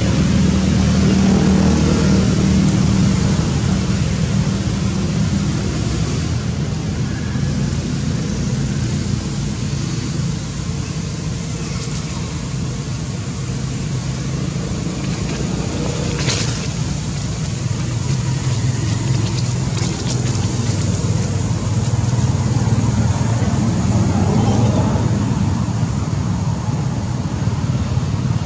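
Steady low rumbling background noise, with one sharp click a little past halfway.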